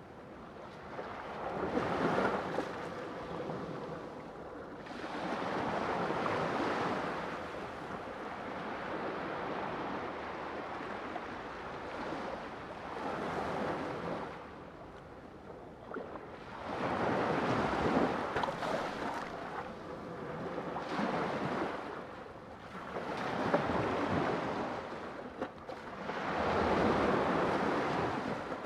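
Sea waves breaking and washing in, the surf swelling and falling back every few seconds.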